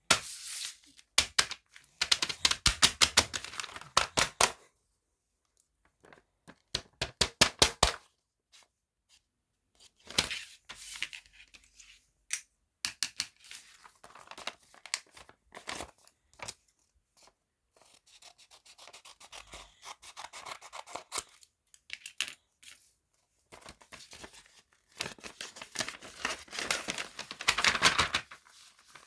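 Bursts of rapid scratching and rubbing noise, a few seconds each, with quiet gaps between them.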